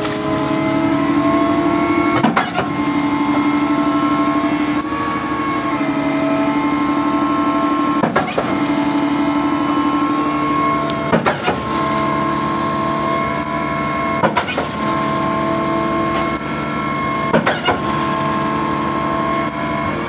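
XCMG truck-mounted concrete pump running for a wash-out: a steady engine drone with a sharp clunk about every three seconds as the pump changes stroke. Concrete is being pushed out of the disconnected outlet.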